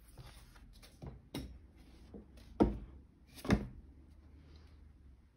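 A few irregular dull knocks and thuds, the two loudest about two and a half and three and a half seconds in, over a faint hiss of room tone.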